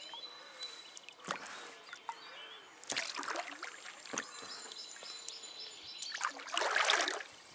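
Kayak paddle strokes splashing in river water, about three strokes, the loudest near the end, with birds singing in the background.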